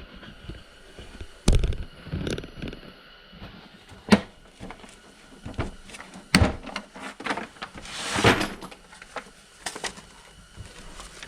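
A blow-molded plastic tool case being unlatched and opened: several sharp clicks and knocks from its plastic latches and lid, with a short scraping rustle about eight seconds in.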